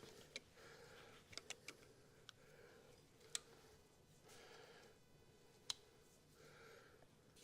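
Faint, scattered clicks and taps of tools and metal, a few sharp ones about 3.5 and 5.5 seconds in, as a tight distributor on a Ford 300 inline-six is worked loose.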